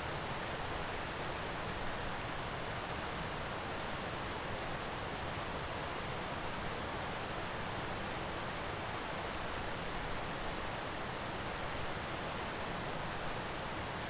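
Steady, even outdoor background noise, a featureless hiss with no distinct calls or other events.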